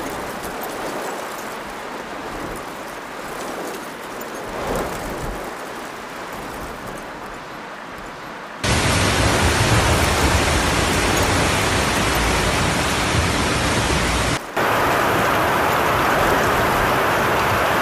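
Steady rushing noise of a muddy flood torrent, then after about eight seconds a sudden switch to a much louder, denser noise of heavy rain pouring down, which breaks off for a moment near the end before going on.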